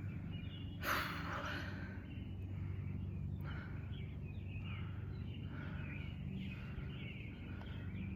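Birds chirping in short repeated calls over a steady low hum, with a brief rustling burst about a second in.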